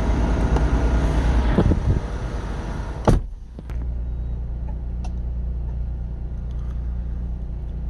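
Semi truck's diesel engine running, louder and rougher for the first two seconds. A single sharp burst comes about three seconds in, after which the engine settles into a steady, quieter idle.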